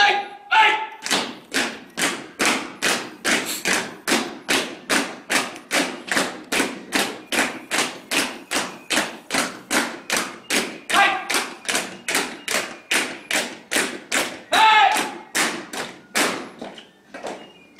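A squad of soldiers marching in step on stone paving: a steady beat of boot-falls, about two and a half a second, fading away near the end.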